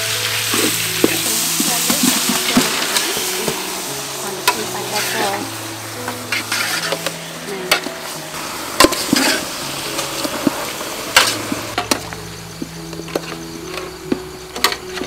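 Pork and goose meat sizzling as they fry, stirred with a metal spatula that scrapes and knocks sharply against the pan every second or so.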